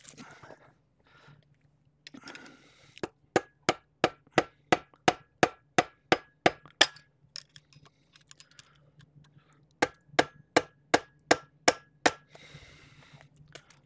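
A hammer striking metal in quick, even blows, about three a second, each with a short metallic ring. About a dozen blows come in a first run, then after a pause of about three seconds a shorter run of about seven.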